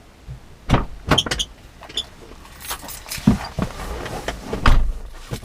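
A string of irregular knocks, clunks and rattles, with about eight separate hits spread over the few seconds: gear being handled.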